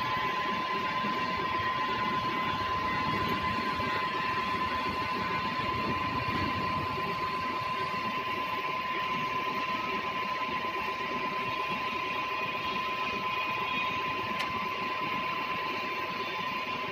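Bridgeport milling machine running steadily, a continuous mechanical noise with a high, steady whine.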